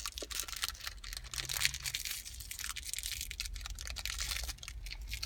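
Small plastic packet being torn and unwrapped by hand, a run of quick crinkles and crackles.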